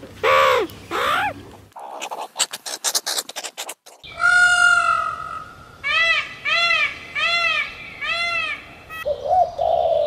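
A sequence of animal calls: short calls and a fast clicking rattle, then an Indian peacock's loud call followed by four short repeated calls, each evenly spaced. Near the end, a dove coos softly.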